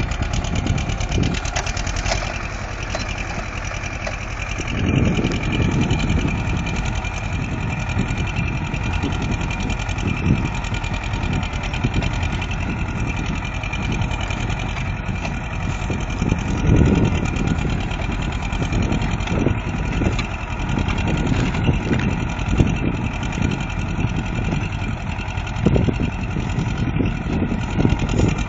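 Compact tractor engine running steadily under load as it pulls a two-bottom reversible mouldboard plough through the soil.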